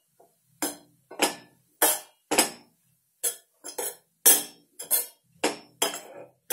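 Metal utensil clinking and scraping against a stainless steel pan while stirring grated carrot, about two clinks a second, each ringing briefly.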